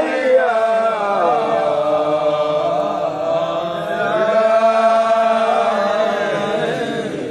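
Men's voices chanting an Arabic Sufi dhikr, holding long, wavering melodic notes.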